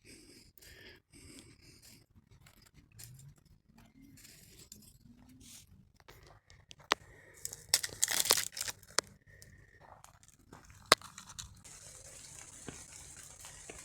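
Dry twigs and kindling being handled, snapped and crumpled to lay a campfire, with a loud crackling burst about eight seconds in and a sharp snap near eleven seconds. Near the end a steady hiss of rain on leaves sets in.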